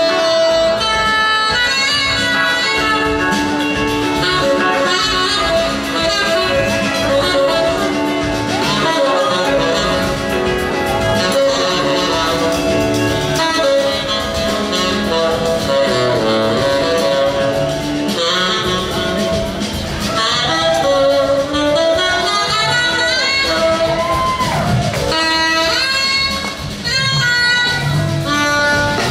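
Saxophone solo over a live band's backing of drums, bass, guitars and keyboards, with sliding, bent notes in the second half.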